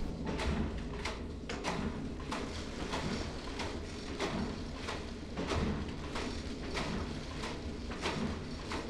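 Hand-operated flatbed knitting machine with its carriage being worked across the needle bed, giving a regular mechanical clacking about three times a second over a low rumble.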